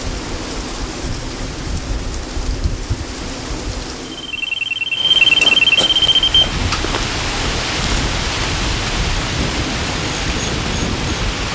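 An electronic carp bite alarm beeps rapidly for about two seconds, starting about four seconds in, over a steady rushing noise.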